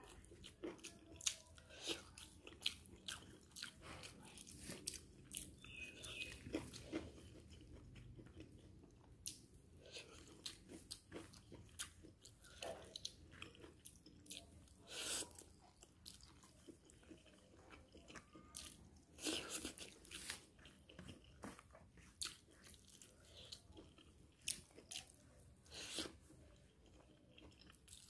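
Close-miked eating sounds: a person biting and chewing a sticky, stringy food from a wooden spoon, with many short mouth clicks and smacks. A few louder clusters come about halfway through and again near the end.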